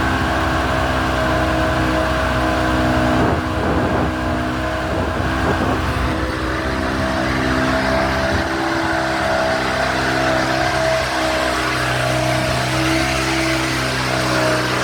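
A machine running steadily: a drone of several held tones over an even rushing hiss, with the lowest tone stepping up a little about eleven seconds in.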